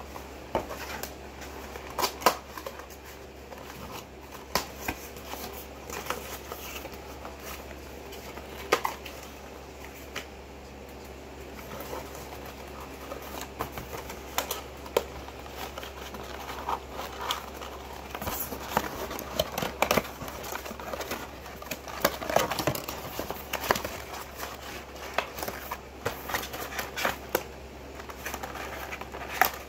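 Irregular taps, clicks and rustling as a cardboard webcam box and its packaging are handled and opened, busier about halfway through.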